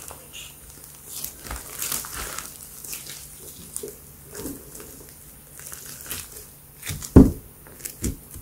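Thick pink slime with small beads mixed in, kneaded and pressed by hand: irregular squishing and crackling, with two louder pops about seven and eight seconds in.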